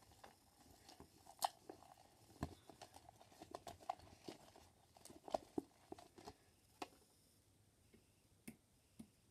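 Homemade slime being kneaded and worked by hand in a plastic cup: faint, irregular sticky clicks and crackles, thinning out near the end.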